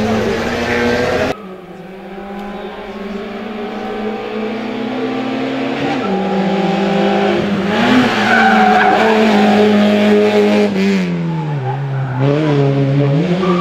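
Peugeot 106 hill-climb race car's engine pulling hard uphill, its note climbing steadily as it comes closer. About eleven seconds in the revs drop as it lifts off for a bend, then rise again as it accelerates out. Just before, a different racing engine at high revs cuts off abruptly about a second in.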